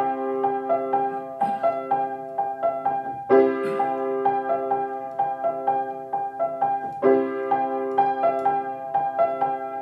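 Background piano music: held chords restruck about every three and a half seconds, with single notes picked out between them.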